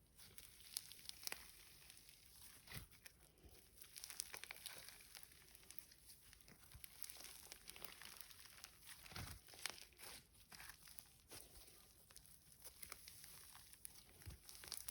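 Faint, irregular crackles and small crunches of a bingsu slime with mixed-in cloud dough being squished and stretched by hand, its bingsu beads crunching.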